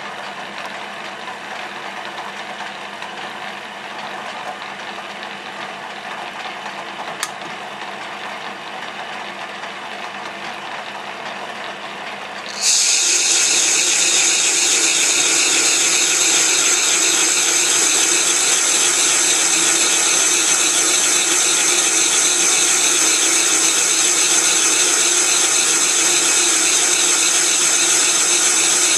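1966 Colchester Bantam lathe running with a steady gear whine. About twelve seconds in, the sound turns suddenly louder and harsher, with a strong high hiss, as the tool cuts the cast iron backplate.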